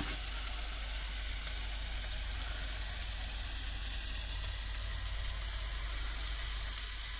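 Food frying in a pan, a steady sizzle with no breaks.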